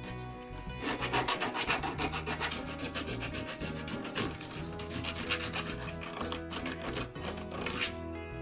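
Small hand file rasping on a small metal part in rapid back-and-forth strokes, starting about a second in and stopping just before the end.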